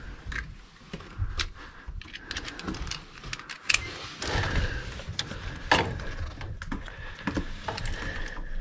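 Hand tools and wires being handled: an irregular run of small clicks and rattles, with a faint steady high whine in the background.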